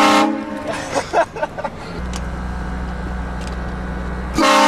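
Two short blasts of a vehicle-mounted train horn, a chord of several notes, one right at the start and one near the end, each cut off after under half a second. From about two seconds in a car engine hums steadily underneath.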